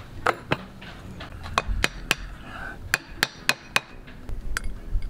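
A hammer tapping the propeller-shaft seal housing back into a Volvo Penta saildrive leg: about ten sharp taps in short runs of two to four, driving the press-fit part home.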